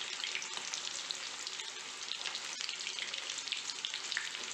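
Chicken kabab pieces deep-frying in hot oil in a kadai: a steady crackling sizzle, with a long spoon stirring them through the oil and a couple of faint clicks. The kababs are midway through frying, changing colour as they cook.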